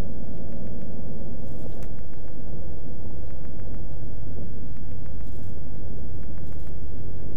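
Beechcraft Bonanza F33's flat-six piston engine running at idle with a steady low rumble, heard in the cabin as the plane rolls out down the runway after landing.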